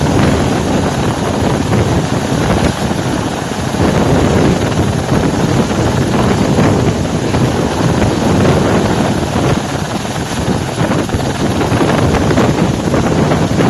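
Helicopter rotor and engine running close by, a loud steady noise, with wind buffeting the microphone.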